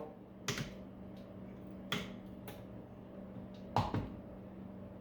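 Wire cutters snipping through wires inside a battery charger: four sharp clicks spread over a few seconds, the loudest near the end, over a steady low hum.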